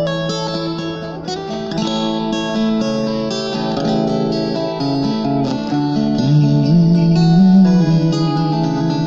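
Acoustic guitar played without singing: plucked chords ringing on, changing every second or so.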